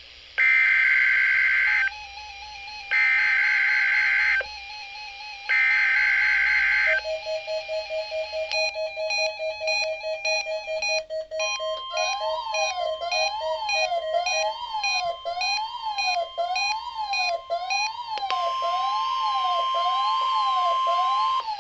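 EAS alert header: three bursts of digital data tones, each about a second and a half long. Then layered electronic alert tones follow: a wavering tone and a fast beeping tone, then from about halfway a siren-like tone sliding up and down, about once a second, over a steady high tone. The tones cut off just before the end.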